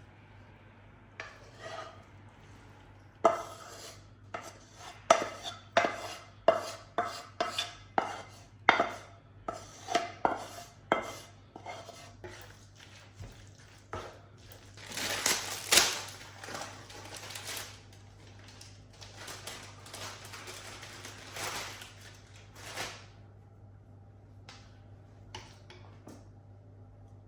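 Kitchen utensils clinking against dishes in a quick run of sharp knocks, about two a second, followed by two longer scraping sounds.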